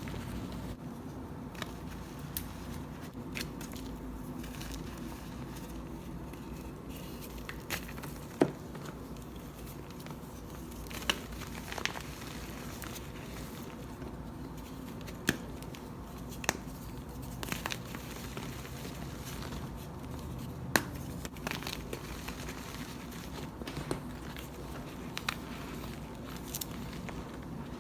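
Pressed chalk blocks being crumbled and crushed by hand: sparse sharp crackles and snaps every second or two, over a steady low hum.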